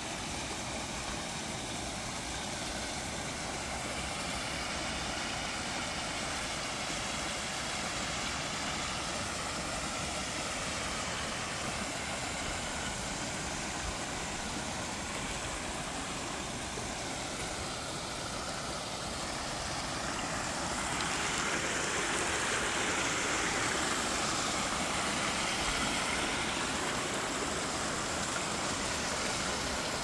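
Small garden waterfall splashing into a pond, a steady rush of falling water that grows louder about two-thirds of the way through.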